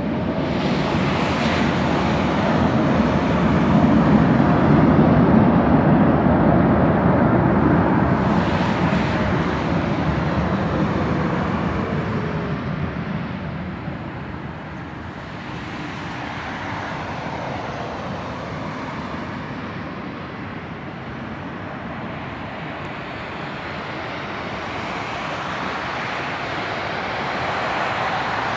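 Boeing 787-8 airliner's GEnx jet engines rumbling on the landing rollout. They grow loudest a few seconds in, then ease off with a faint falling whine as they spool down, leaving a steadier engine hum as the jet taxis.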